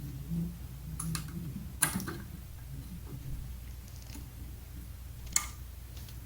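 Brake pads and their metal clips being handled and fitted into a rear caliper bracket: a few sharp metallic clicks and taps, the loudest about two seconds in and again near the end, over a low steady hum.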